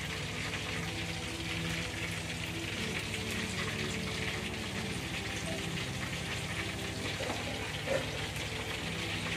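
Chicken broth with cucumber and baby corn simmering and sizzling in a metal wok: a steady crackling hiss, with a light knock about eight seconds in.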